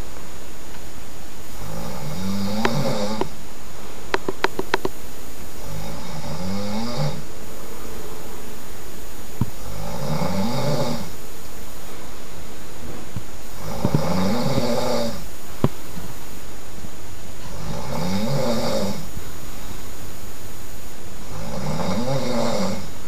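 A sleeping person snoring loudly, with six long snores about four seconds apart, each rising and then falling in pitch. A quick run of small clicks comes about four seconds in.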